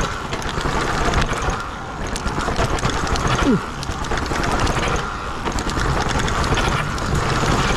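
Rawrr Mantis electric dirt bike riding down a flight of stairs: many rapid rattling knocks over a steady rushing noise, with a brief falling whine about three and a half seconds in.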